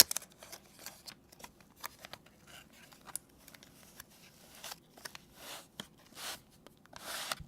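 A small product box being opened and its contents handled: scattered light clicks and taps, with a few short scraping or rustling swishes in the last couple of seconds.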